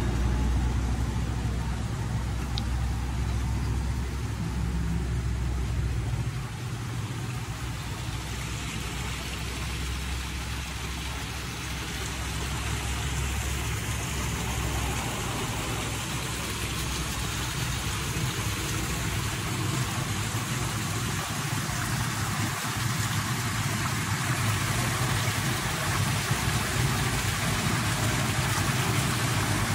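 Steady outdoor background noise: a low rumble under a steady hiss. The rumble is strongest in the first half, and the hiss grows brighter after that.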